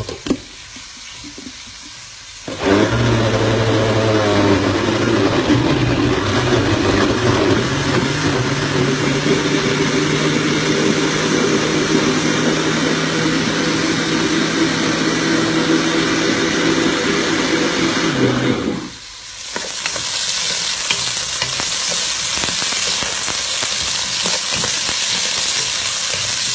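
Electric countertop blender running, puréeing whole tomatoes with a cup of water: the motor starts a couple of seconds in, winds up, runs steadily for about sixteen seconds and stops abruptly. Then okra sizzling as it fries in oil.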